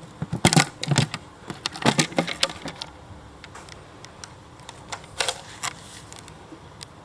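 Light clicks and rattles of small hard objects being handled, in three quick clusters: about half a second in, around two seconds in, and a brief one about five seconds in.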